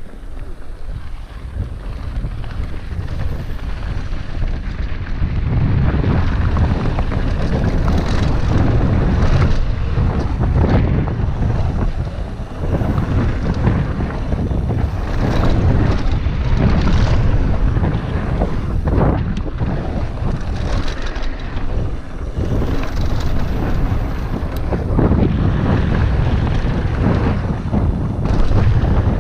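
Wind buffeting a helmet-mounted camera microphone and mountain-bike tyres running over loose dirt on a fast downhill descent, with frequent knocks and rattles from the bike over bumps. The rumble grows louder over the first few seconds as speed builds.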